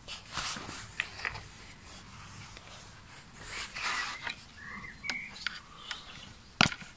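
Handling noise: rustles, scrapes and clicks as a phone is picked up and moved about with a hand over it, with one sharp click near the end.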